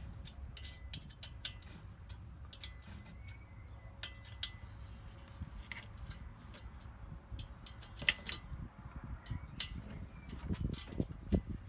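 Scattered light clicks and taps of small parts, bolts and a circuit board being handled and fitted, over a low steady hum.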